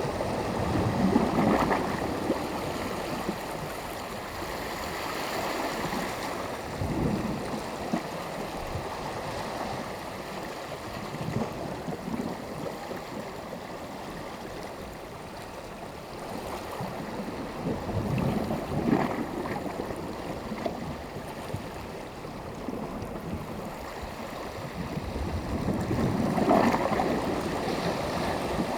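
Mediterranean sea surf: small waves washing onto the shore over a steady wash of water, swelling and falling back every several seconds, the biggest near the start and near the end.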